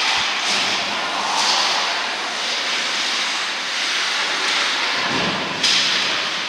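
Spectators cheering in an ice rink after a goal: a steady wash of crowd noise with no clear words, growing suddenly louder near the end.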